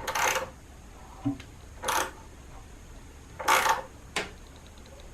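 A spanner with an extension fitted for leverage tightens the heating element's retaining nut in a washing machine drum housing, giving four short metallic clicks about a second and a half apart.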